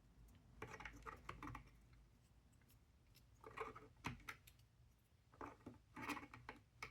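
Faint clicks and taps of small puzzle-box pieces being handled and fitted into the box, in three short clusters.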